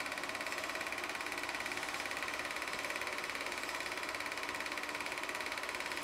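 Railvac vacuum-excavation train hauled by Class 66 diesel locomotives passing at speed: a steady rolling noise of the vehicles going by, with a fast, even rhythm.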